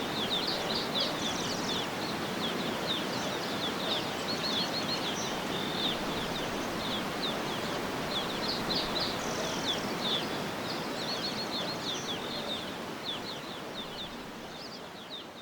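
Tropical forest ambience: many small birds chirping in quick, repeated high notes over a steady rushing of water, fading down near the end.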